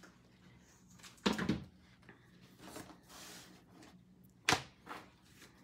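Paper-craft supplies handled on a tabletop: a clear plastic stamp case and card stock being moved, giving a knock about a second in, a brief paper rustle, and two sharp clicks near the end.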